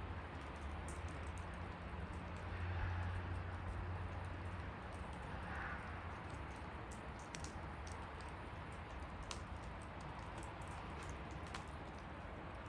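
Wood bonfire burning: a steady low rush of flames with scattered sharp crackles and pops.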